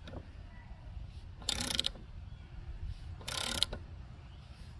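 Socket ratchet clicking in short bursts, twice about two seconds apart, as it turns a gear puller's forcing screw against a rust-seized mower blade adapter.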